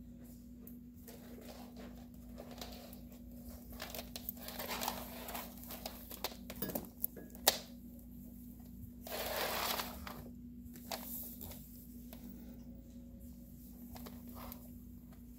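Soft rustling and scuffing from footsteps and a long leash being pulled across rugs and a wooden floor, with scattered clicks, one sharp click about seven and a half seconds in, and a louder rustle around nine to ten seconds in.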